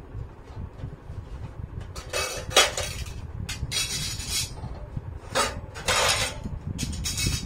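Stainless-steel gas stove and its metal parts being handled: metal clatter and scraping in several short bursts from about two seconds in.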